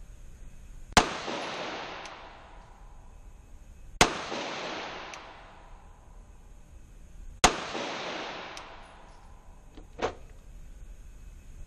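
Three single 9mm pistol shots fired a few seconds apart in slow aimed fire, each a sharp crack followed by an echo that fades over a second or two. A smaller, fainter knock comes near the end.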